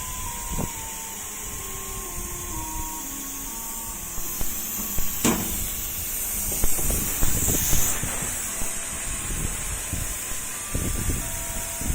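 1325 CNC laser cutting machine running: its motors whine at a series of short, stepped pitches as the head moves, over a steady high hiss. A sharp click about five seconds in, and scattered knocks in the second half.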